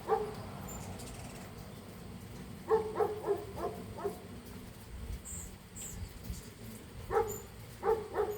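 A dog barking in short yaps: one early, a quick run of about five around three seconds in, and a few more near the end. A few brief high chirps from hummingbirds fall between them.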